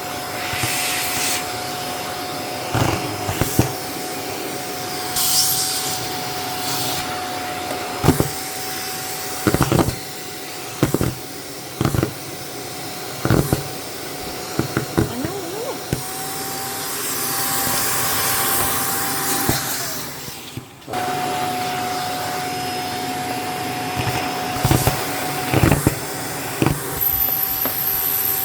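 Shark vacuum cleaner running with a steady motor whine while packing peanuts are sucked up, knocking and clattering irregularly as they go through. About three-quarters of the way through, the motor sound drops briefly and comes straight back.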